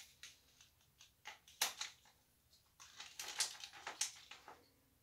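Jewelry being handled and swapped: faint, irregular light clicks and rustles, bunched about a second and a half in and again from about three to four and a half seconds in.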